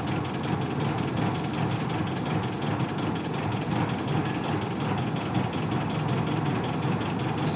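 Isuzu Cubic bus's 8PE1 diesel engine idling, a steady low rumble; this bus's idle is described as quite unstable.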